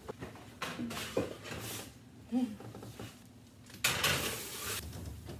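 A wall oven door is pulled open with a click, then a metal baking pan is handled on the oven rack, with a knock about a second in and a metallic scrape about four seconds in as the pan is slid out.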